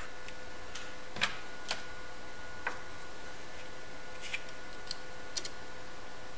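Scattered light clicks and ticks, about eight of them at uneven spacing, from a small hand tool and fingers fastening the ends of a fine wire loop into an LCR meter's test fixture. A faint steady tone sits underneath.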